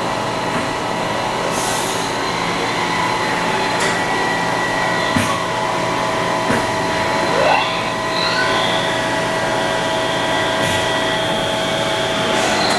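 Haas ST-40 CNC lathe running with its spindle turning, a steady machine whine made of several held tones. A few light clicks come through it, and there is a short rising whine about seven and a half seconds in.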